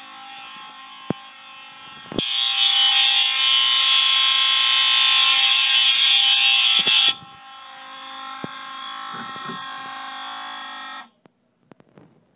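A fire alarm system's horns, a Wheelock MT-24-LSM set to continuous horn among them, sounding a steady, harsh, loud tone at high volume. It is much louder for about five seconds in the middle and cuts off suddenly near the end.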